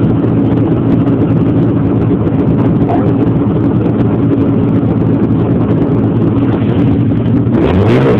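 Snowmobile engine running steadily, its pitch rising near the end as it speeds up.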